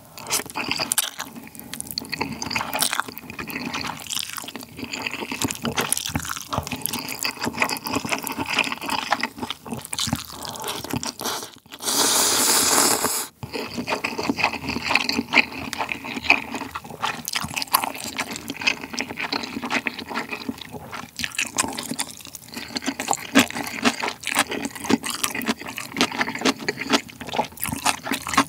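Close-miked slurping and chewing of spicy Jin Ramen instant noodles: wet, sticky mouth sounds with many short sharp smacks. About halfway through comes one long, loud slurp, lasting a second and a half, of the broth from a small bowl.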